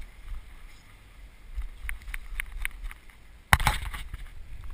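Calm water lapping and ticking lightly against a plastic sit-on-top kayak's hull, with a low wind rumble on the microphone. About three and a half seconds in comes a sudden loud noise that dies away within a fraction of a second.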